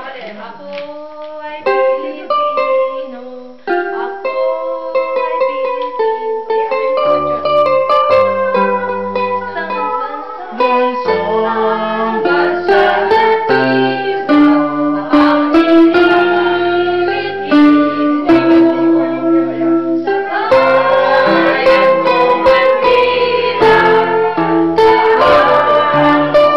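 Electronic keyboard playing an introduction, with a bass line coming in after about seven seconds. A group of women then sing along with it from about halfway, and the singing grows fuller in the last few seconds.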